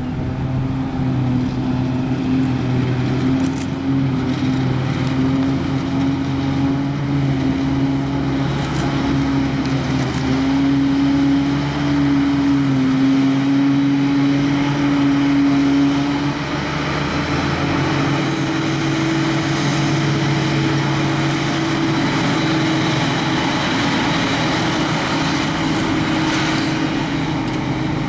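Claas Jaguar self-propelled forage harvester chopping grass, its diesel engine and chopper running steadily under load, with the tractor hauling the silage trailer alongside. The engine note steps slightly higher a little past the middle.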